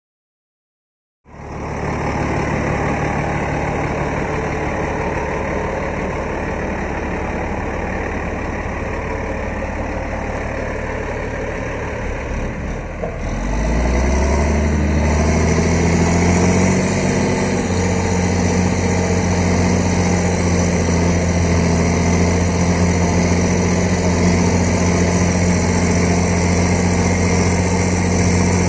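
Large diesel engine of a John Deere-powered Rába articulated tractor running steadily. About halfway through it revs up to a higher, louder steady pitch as it works under load.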